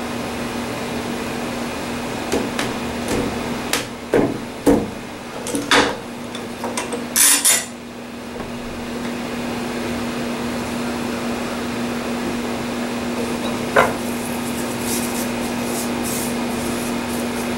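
Metal bar clamps knocking and clicking against a glued-up ash panel as they are laid across it and tightened, with a cluster of sharp knocks in the first half and one more knock later. A steady hiss with a low hum runs underneath.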